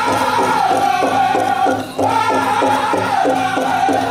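Powwow drum group playing a chicken dance song: a big drum beaten steadily, about four beats a second, under high-pitched group singing in unison. The sound drops off briefly just before the two-second mark.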